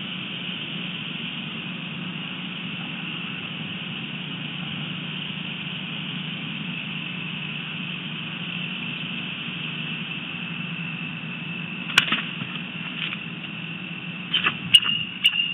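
Bald eagle giving a few short, sharp, high calls near the end, over a steady low hum and high hiss. A single sharp click comes a few seconds before the calls.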